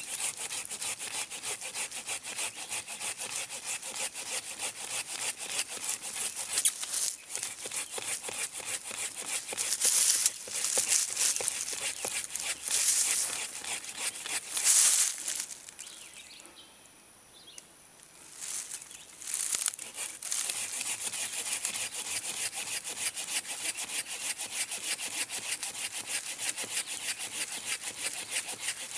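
Gerber Exchange-A-Blade folding hand saw cutting into the trunk of a live sweet gum tree in quick back-and-forth rasping strokes. The sawing stops briefly a little past halfway, then carries on.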